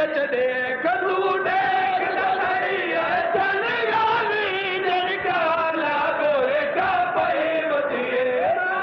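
A man chanting a mournful lament in a sustained, wavering melody, the sung style of a Shia majlis recitation of the martyrdom of Muslim ibn Aqil.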